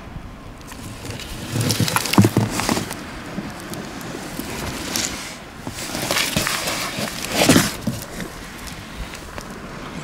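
Handling noise from a large paper-cased aerial firework shell being lifted and turned over on cardboard: rustling and scraping of paper and card. It comes in two bouts, about two seconds in and again from about six to eight seconds.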